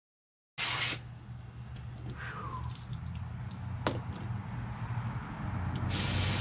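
Garden hose water spraying into a K&N cone air filter and splashing onto concrete. It hisses loudest just after the start and again near the end, with quieter running and splashing in between while the filter is handled.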